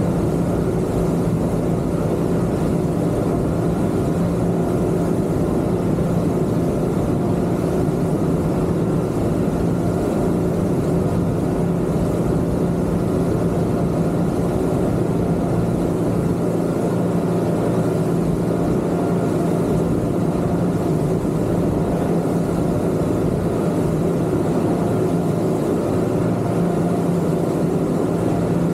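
Twin Yamaha 250 outboard motors running at a steady cruise, a constant engine drone with an even rush beneath it and no change in speed.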